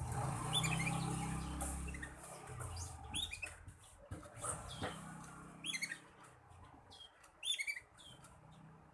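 Black-red canary giving short bursts of quick high chirps and twitters, about five scattered phrases, the 'ngeriwik' chatter of a young canary learning to sing. A low rumble under the first couple of seconds dies away.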